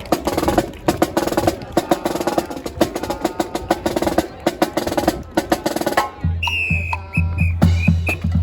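Marching band drums playing a fast, busy snare cadence. About six seconds in the sound changes, and the full band comes in over a strong, steady bass beat.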